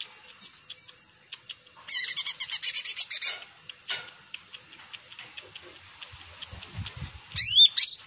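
Caged blue-winged leafbird (cucak ranting) singing: a dense run of fast, high chattering notes about two seconds in, lasting about a second and a half, then a short phrase of quick swooping notes near the end, with faint clicks between.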